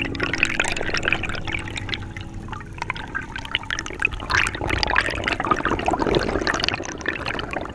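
Water sloshing and bubbling, with many small crackles throughout.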